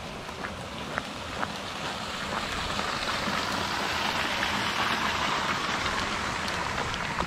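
Running water rushing and splashing, swelling over the first few seconds and then holding steady, with a few light footsteps on a gravel track.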